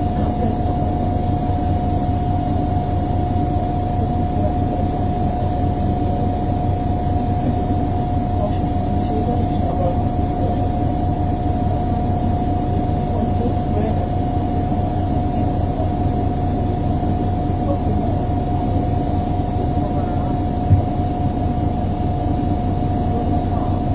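MAN 18.220 bus's diesel engine idling while stopped, heard from inside the saloon as a steady low rumble with a constant high whine held over it. A single knock about three seconds before the end.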